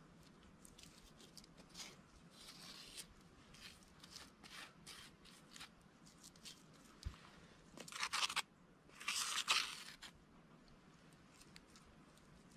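Trowel scraping clay mortar onto and along bricks: a run of short scrapes, with two longer, louder scrapes about eight and nine seconds in.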